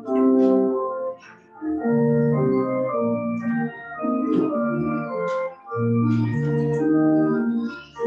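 Church organ playing a hymn in sustained chords, phrase by phrase, with short breaks between the phrases.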